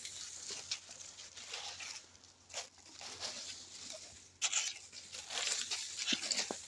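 Soft, irregular rustling and scuffing in dry leaves and loose soil, with two sharper rustles about two and a half and four and a half seconds in.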